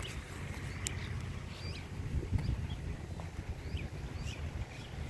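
Short, scattered bird chirps, several a second, over a steady low rumble of wind and water.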